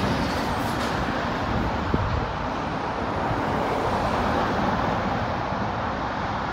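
Eddie Stobart Scania lorry driving away, its low engine sound fading into steady road traffic noise as other vehicles pass. There is one short sharp tick about two seconds in.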